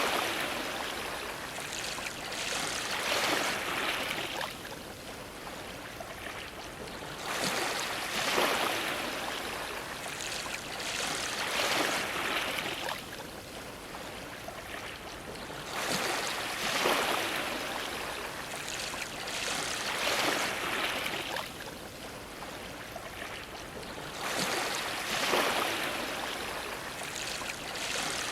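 Ocean waves splashing against a dock. A surge of water comes about every eight seconds, each made of a few quick splashes, over a steady wash.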